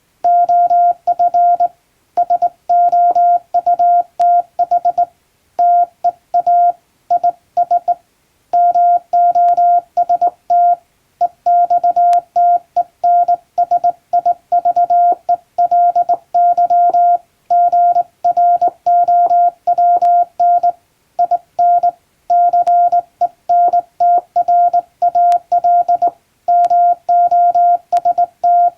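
Morse code keyed by hand on a JRC (Japan Radio Co.) telegraph key, heard as a single-pitched beep switching on and off in rapid dots and dashes, with short pauses between groups: an English-language telegram being sent.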